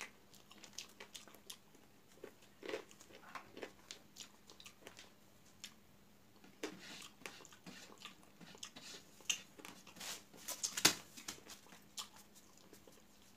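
Close-up eating sounds of a man eating curry and rice by hand: a steady run of wet mouth clicks and lip smacks as he chews, with one sharper click late on the loudest.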